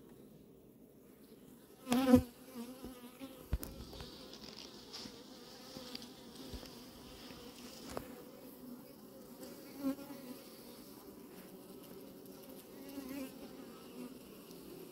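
Honeybees from an opened hive buzzing in a steady hum, with a brief, much louder buzz about two seconds in and a few faint clicks.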